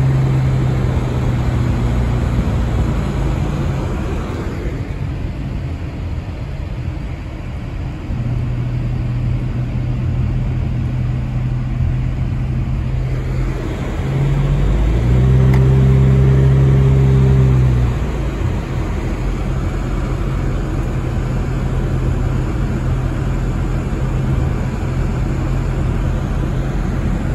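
A car driving on a wet road, heard from inside the cabin: a steady engine hum under the hiss of the road. A little past halfway the engine grows louder for a few seconds, then settles back.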